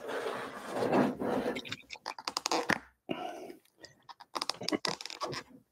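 A thin plastic lid being worked off a fast-food takeout container: irregular rustling with bursts of sharp crackles and clicks as the plastic flexes and snaps.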